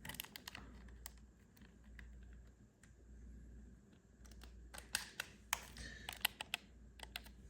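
Light plastic clicks and taps from a PlayStation 4 controller being handled, with a couple near the start and a quick run of clicks between about five and six and a half seconds in.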